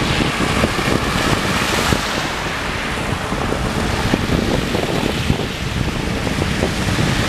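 Storm wind buffeting the microphone: a steady rushing noise with a heavy, uneven low rumble.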